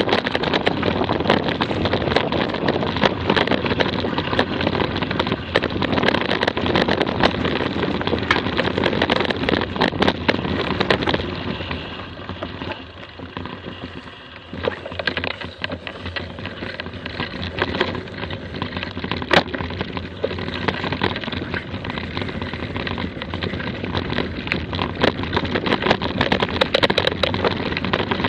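Mountain bike rolling down a rough gravel and dirt track, with a constant clatter of small clicks and knocks from the bike over the bumps and wind noise on the action camera's microphone. It quietens for a few seconds around the middle, then builds again.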